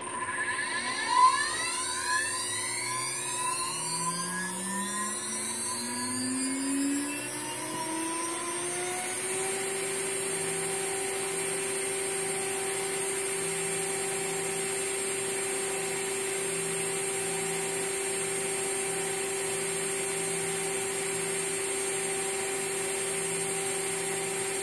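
Water-cooled 220 V CNC router spindle, driven by a VFD, spinning up from rest: its whine rises in pitch over about nine seconds, then holds steady at 23,000 RPM as a constant high-pitched whine. It is briefly louder about a second in.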